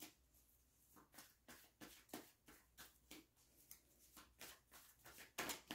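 Near silence: room tone with faint, short clicks a few times a second and a slightly louder one near the end.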